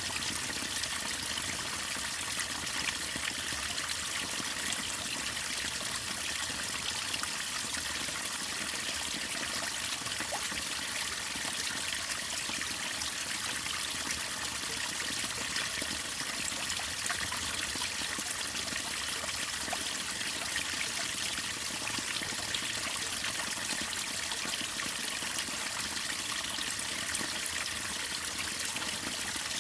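Waterfall: water falling and splashing in a steady, unbroken rush, with fine droplet splashes all through it.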